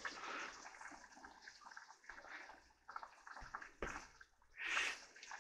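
Pot of chicken curry simmering on the stove: faint bubbling with small irregular pops. A brief soft whoosh comes near the end.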